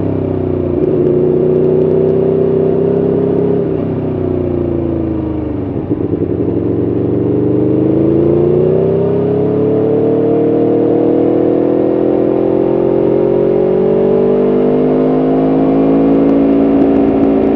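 Aprilia Tuono V4 1100RR's V4 engine under way from the rider's seat. It holds a steady pitch, drops off about four seconds in with a brief stutter near six seconds, then pulls up again in a long, gradual rise.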